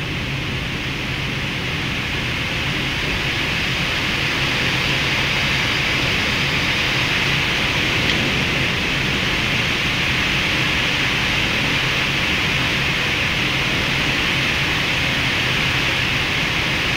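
Boeing 777 flight-deck noise on final approach: a steady rush of airflow with a low steady hum beneath it, growing slightly louder over the first few seconds.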